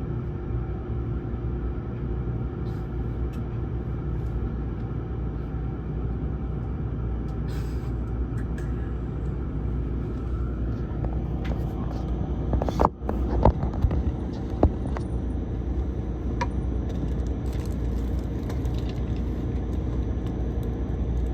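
Steady low rumble inside a 681 series train car, with a brief drop in level about thirteen seconds in followed by a few sharp clicks.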